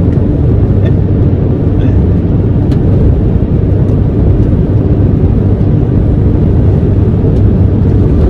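A truck driving along a highway: a steady, loud low drone of engine and tyre-on-road rumble.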